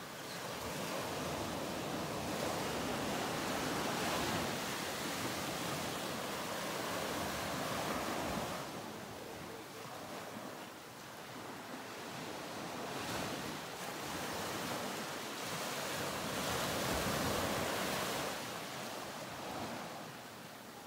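Ocean surf washing in slow swells: a steady rush of waves that rises and falls every few seconds.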